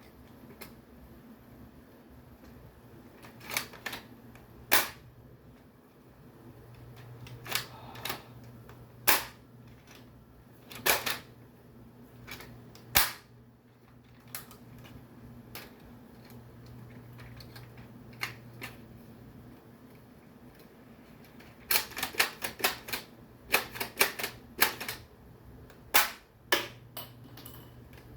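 Toy M32 grenade launcher being worked and fired: scattered sharp plastic clicks and clacks, then a quick run of them near the end, over a steady low hum.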